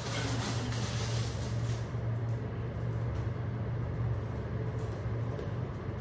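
A steady low hum, with faint rustling and handling noise in the first two seconds.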